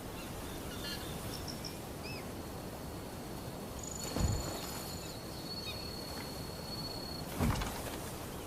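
A naginata swung through the air twice, two short whooshes about three seconds apart, over outdoor ambience with birds chirping and a thin high insect-like tone.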